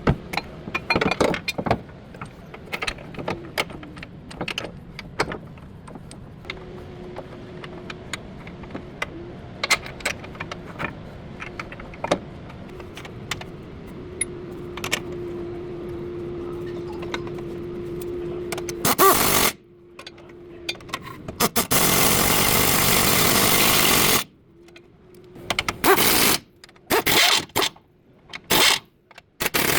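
Metal hand tools and parts clinking and clanking in a car repair on the front suspension, over a faint steady hum. Then several loud bursts of a power tool, each running steadily for one to three seconds.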